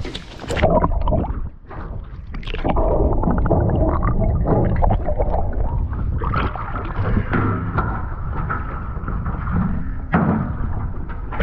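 Seawater sloshing and gurgling around a camera held at the surface, with muffled underwater noise as it dips in and out of the water.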